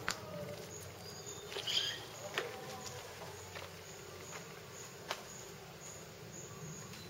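Insects chirping steadily, with short high-pitched chirps repeating about two to three times a second. A few sharp clicks stand out over it.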